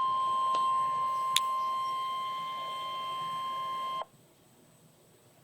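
NOAA Weather Radio 1050 Hz warning alarm tone: a single steady beep that cuts off suddenly about four seconds in. The tone is the signal that a warning message, here a tornado warning, is about to be read.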